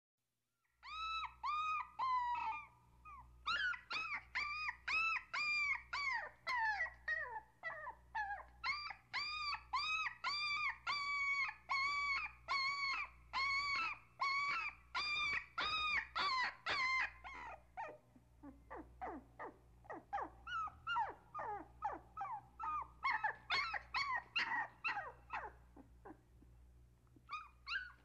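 A puppy crying: a long run of high-pitched whines, each rising then falling in pitch, about two a second. In the second half they come quicker, fainter and more broken.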